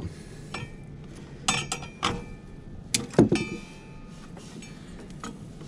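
Irregular metallic clinks and clanks of a half-inch breaker bar against the mower's belt tensioner and frame as the tension on the hydro drive belt is released and the belt is slipped off. The loudest clank, with a brief metallic ring, comes a little past three seconds in.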